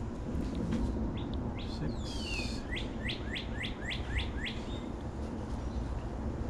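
A wild songbird singing: a few short chirps, then a run of about seven quick down-slurred notes about three seconds in, over a steady low background rumble.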